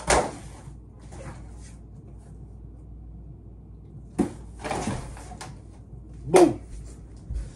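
A large cardboard box being handled and set in place: a sharp knock at the start, then bumps and scrapes about four to five seconds in, and another loud knock about six seconds in.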